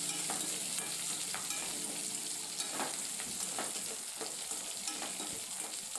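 Sliced shallots, curry leaves and dried red chillies sizzling in hot oil in a stainless steel kadai as they are sautéed, stirred with short scraping clicks against the pan.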